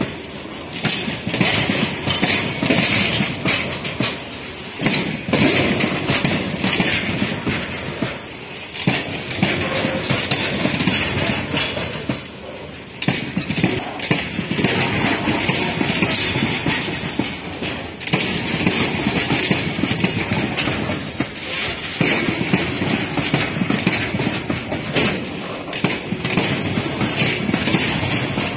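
A long rake of BCNA covered freight wagons rolling past close by: steel wheels clattering on the rails and the wagon bodies rattling, the noise swelling and dipping every few seconds as the wagons go by.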